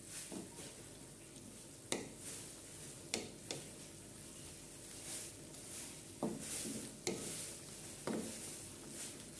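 Wooden spatula stirring pork pieces in an aluminium wok, knocking against the pan about six times, over a faint steady sizzle of frying.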